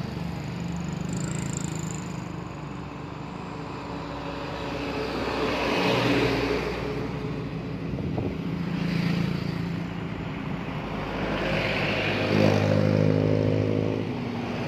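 Motorcycles and a car passing close by on a road, one after another, each engine swelling and fading; the loudest pass, with its pitch dropping as it goes by, comes near the end.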